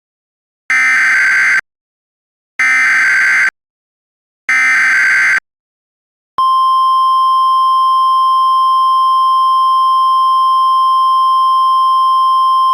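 Emergency Alert System (EAS) header: three short bursts of warbling digital data tones about two seconds apart. A second later a single steady attention tone starts and holds for about eight seconds. Together they signal the start of a broadcast emergency alert.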